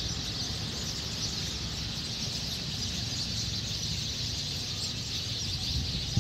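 A big flock of sparrows chirping all at once in a tree as they gather to roost at dusk: a dense, unbroken chatter of many overlapping high chirps. A steady low rumble runs underneath.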